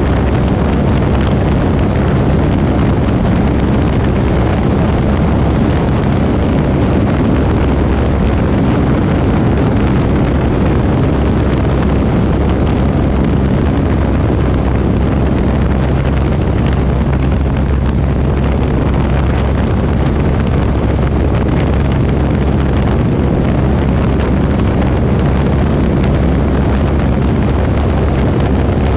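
Small propeller airplane's engine running steadily at a constant drone, heard from on board, with wind rushing over the microphone.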